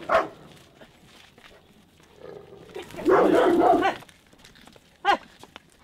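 Dog barking: two short sharp barks at the start, a longer, loud call about three seconds in, and a single short call near the end.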